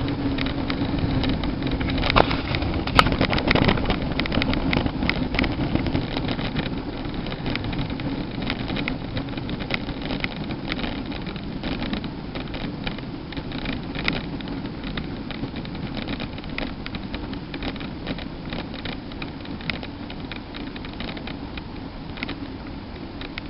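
Bicycle coasting without pedaling: a steady rush of wind and tyre noise on the tarmac, broken by frequent sharp clicks and knocks as the bike rolls over the road surface. The sharpest knocks come a few seconds in, and the rush then eases off slowly.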